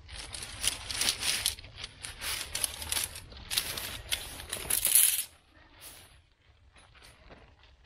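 Bundle of aluminium tent pegs clinking and jangling against each other as they are slid out of their stuff sack. The loudest clatter comes about five seconds in, as the pegs are put down in a pile.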